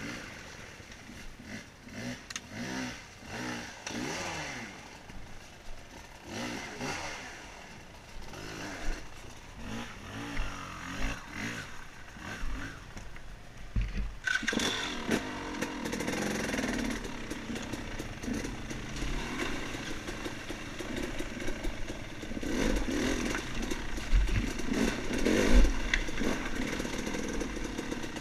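Off-road dirt bike engine revving up and down as it is ridden, rising and falling in pitch with the throttle. It gets louder about halfway through, with a few low thumps near the end.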